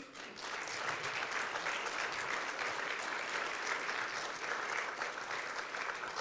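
Audience applauding: dense steady clapping that swells in within the first half second and keeps on at an even level.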